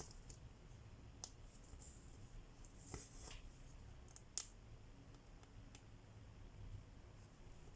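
Hand cross-stitching, heard faintly: a handful of scattered sharp clicks and ticks, with the loudest about halfway through, as the needle pokes through the fabric.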